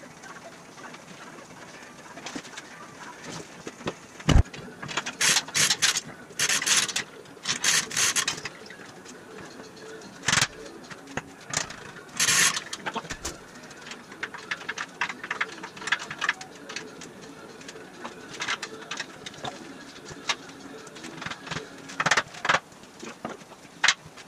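Hand chain hoist being worked: its chains rattle and clank in short bursts, a cluster of them about five to eight seconds in and single clanks later on.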